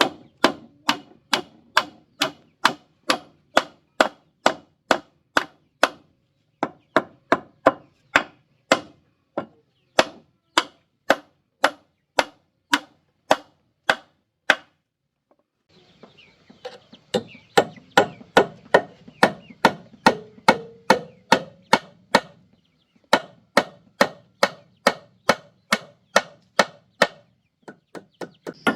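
A long series of sharp, evenly spaced blows, about two and a half a second, with a short break about six seconds in and a longer one around the middle.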